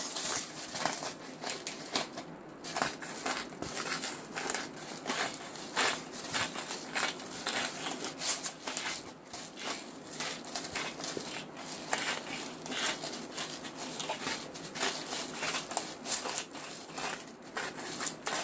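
Seasoning shaken from a packet and then a shaker bottle over a pot of vegetables: a run of irregular light taps, rattles and crinkles.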